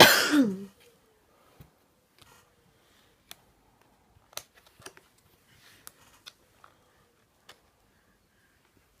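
A short voice sound right at the start, falling in pitch. Then a string of faint, scattered clicks and taps from hands handling something, about a dozen over several seconds.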